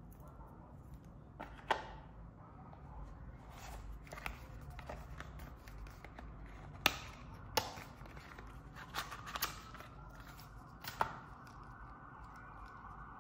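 Hands handling smartwatch packaging and accessories: a dozen or so scattered light clicks and taps of a cardboard box, straps and a charging cable, the loudest about seven seconds in.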